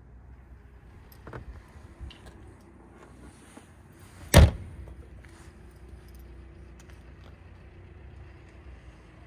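The hood of a 2021 Chrysler Pacifica Hybrid minivan being shut: a couple of light knocks as it is lowered, then one loud slam about four and a half seconds in as it latches.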